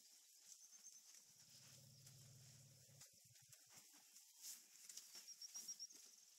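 Near silence: faint bush ambience with short runs of high bird chirps and light rustling. A low steady hum runs for under two seconds near the start.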